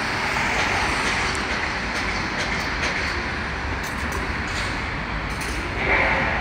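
Steady city street traffic noise, with a few faint footsteps on stone stairs and a brief louder swell near the end.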